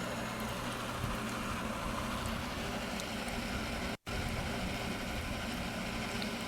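Steady mechanical hum with a low electric buzz, like a running motor or pump, broken by a split-second dropout about four seconds in.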